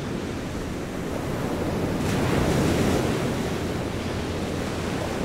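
Sea waves washing onto the shore, with wind buffeting the microphone; the surf swells a little louder about two seconds in.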